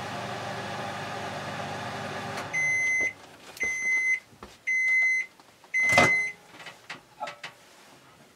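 Oster countertop microwave oven running with a steady hum that stops about two and a half seconds in as the cycle ends, followed by four long end-of-cycle beeps about a second apart. Its door is pulled open with a click during the last beep, and a few light knocks follow.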